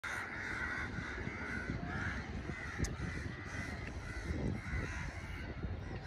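Crows cawing again and again, over a steady low rumble.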